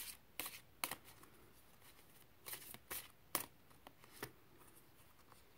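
Tarot cards being handled and shuffled: short papery snaps and slides in a few clusters, the sharpest about three and a half seconds in, dying away after about four seconds.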